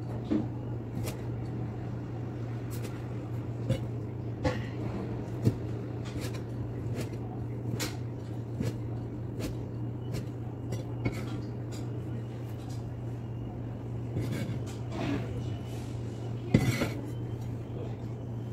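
Cleaver chopping meat on a cutting board: irregular sharp knocks of the blade hitting the board, about one a second, with a louder clatter near the end. A steady low hum runs underneath.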